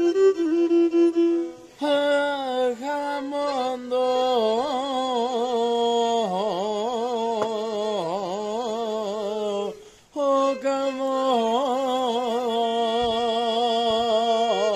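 A man singing a slow Pontic Greek folk song, his long held notes bending and wavering in ornaments. The line breaks off for a moment about ten seconds in, then carries on.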